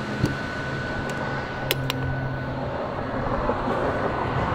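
Steady low mechanical hum with a thin high whine above it and a few light clicks.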